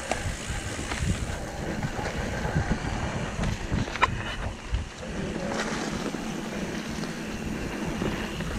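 Wind buffeting the microphone of a camera on a mountain bike in motion, with low rumble and scattered knocks from the bike on the trail, and one sharp click about four seconds in.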